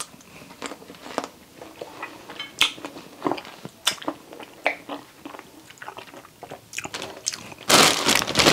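A person chewing and biting into fresh cherries close to the microphone, with irregular small clicks and wet mouth sounds. Near the end comes a loud breathy rush.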